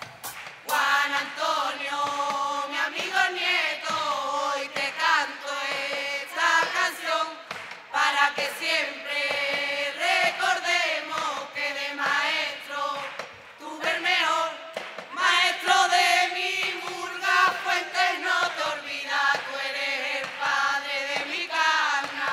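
A carnival murga chorus of women's and men's voices singing together, a steady run of sung lines with short breaths between phrases.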